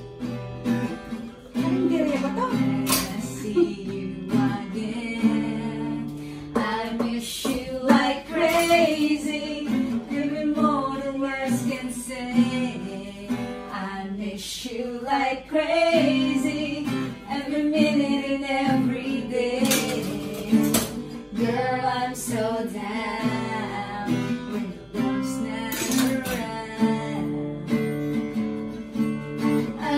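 Acoustic guitar strummed in steady chords, with a woman singing along.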